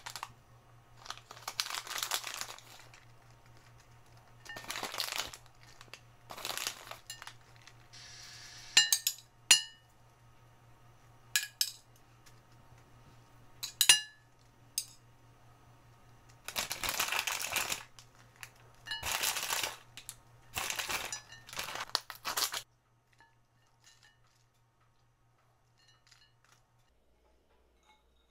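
Kitchen handling sounds: several short rustling, crinkling bursts and scattered light clinks, over a faint steady hum that stops near the end.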